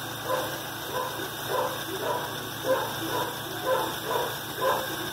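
A dog barking repeatedly, about two barks a second, over a steady low hum.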